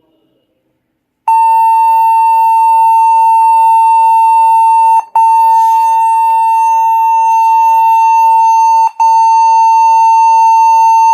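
HP laptop giving its fault beep at power-on: one loud, steady high tone that starts about a second in and runs on, broken twice by brief gaps. It is the startup beep of a laptop that won't turn on.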